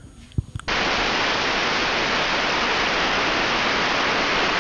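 A faint click, then a steady hiss of static noise that starts abruptly under a second in and cuts off suddenly at the end.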